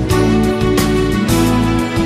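Instrumental background music with plucked-string notes.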